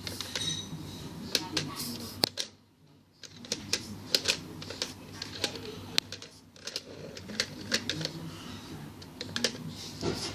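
Irregular sharp plastic clicks and clacks from a Lego model rifle being handled and worked, with a few louder snaps among them. There is a short lull about two and a half seconds in.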